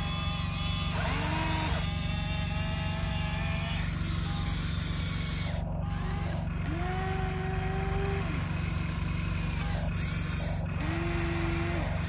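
Huina radio-controlled model excavator working: a steady low hum with electric motor whines that rise, hold for a second or so and drop again, several times, as the boom, arm and bucket move.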